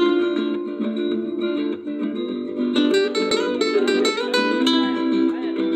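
Acoustic guitar playing a flamenco rumba: a quick run of plucked melody notes broken by a few sharp strummed chords.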